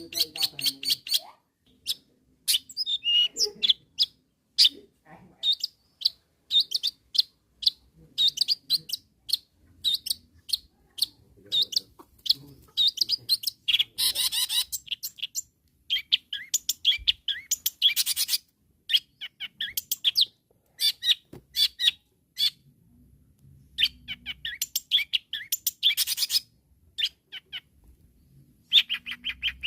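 Long-tailed shrike (cendet) in full, energetic song: rapid runs of quick, high chirping notes with a few brief pauses. This is the kind of song used to call out and provoke rival shrikes.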